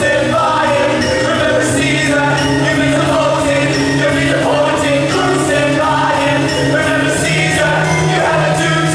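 Live pit band and singing ensemble performing a rock-musical number, with held bass notes and repeated cymbal crashes; the bass steps up in pitch near the end.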